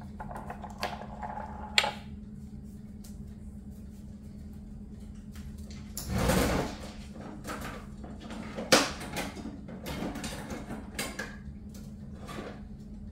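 Kitchen handling noises: scattered clicks and knocks, with a longer rustling, scraping burst about six seconds in, over a steady low hum.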